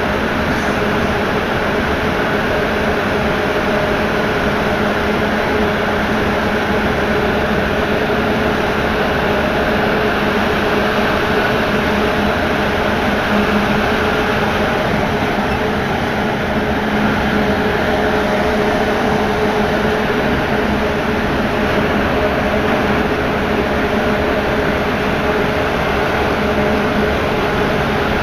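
Steady running noise heard inside an MP89CA rubber-tyred metro train under way: a continuous rumble of tyres and running gear with an even, unchanging electric hum from the traction equipment.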